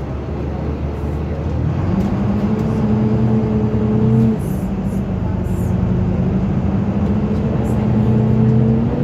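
Diesel engine of a Dublin Bus Volvo B9TL double-decker heard from inside the passenger saloon as the bus accelerates: the engine note climbs, drops at a gear change about four seconds in, then climbs again, over steady road noise and a few small rattles.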